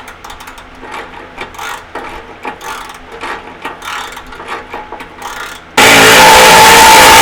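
Socket ratchet clicking in quick, uneven strokes on the 14 mm exhaust flange bolts. About six seconds in, a sudden, very loud rush of noise with a steady whine in it lasts about two seconds.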